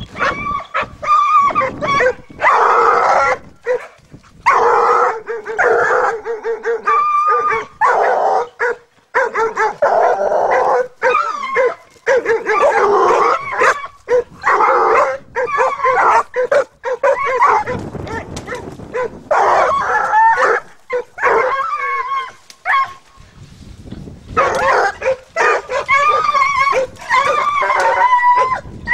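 Hunting hounds, a Slovenský kopov among them, baying over and over in drawn-out, pitched calls, sometimes overlapping, with short breaks between runs: hounds giving tongue as they work through scrub in training.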